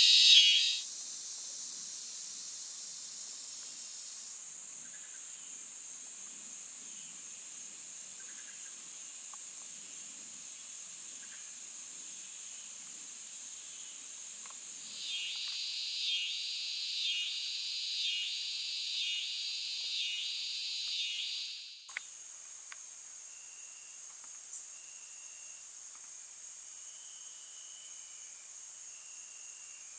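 Evening insect chorus: a steady high-pitched shrill runs throughout. A louder, rapidly pulsing insect call swells about once a second from the middle and cuts off suddenly. Short chirps then repeat about once a second, with a faint click or two.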